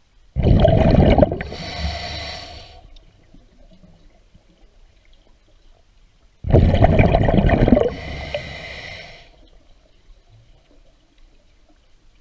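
A scuba diver's regulator breathing underwater: two breath cycles about six seconds apart, each a loud bubbling rush followed by a softer hiss.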